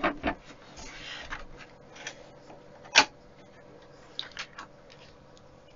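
Sharp clicks and knocks from a metal-cased bench instrument being handled and set on the workbench. The loudest comes about three seconds in, with a few fainter ticks after it.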